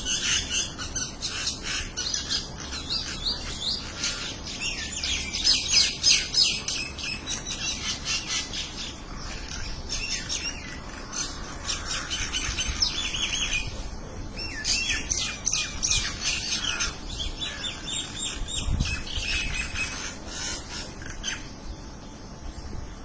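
Birds chirping and twittering: many quick high notes overlapping, thinning out near the end.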